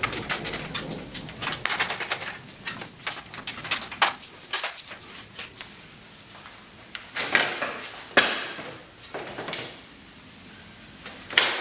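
Clicks and scraping rasps of a Jeep Liberty's plastic front grille being handled as its screws come out and it is tilted forward off its clips: a quick run of small clicks at first, then several louder scrapes, the loudest near the end.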